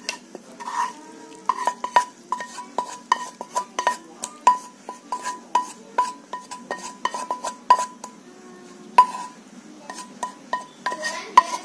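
Spatula scraping and knocking against a frying pan as stir-fried bamboo shoots are pushed out onto a plate: a run of ringing clicks, about two or three a second.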